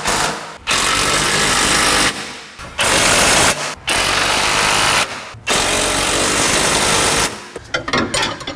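Cordless impact wrench hammering in about five bursts of one to two seconds, tightening the 17 mm rear suspension bolts, followed near the end by light clatter of the tool and sockets.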